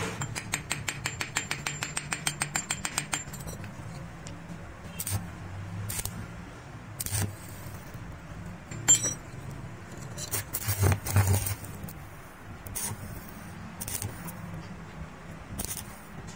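Rapid, even tapping of metal on a steel adjustable wrench, about eight taps a second for the first three seconds, as after arc welding, when slag is chipped off the fresh weld. Then single clinks and knocks of the steel wrench being handled and set against the stone, with a short cluster of them about eleven seconds in.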